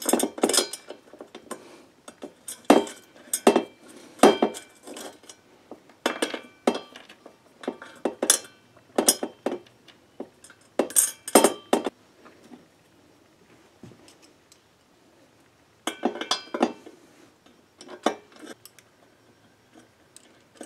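Steel washers and a bolt clinking against a painted square steel tube as they are fitted through its hole by hand. The clinks come irregularly in clusters, each with a short metallic ring, with a lull in the middle before they start again.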